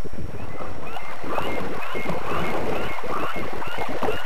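A flock of geese honking over and over from about a second in, over a constant low rumble.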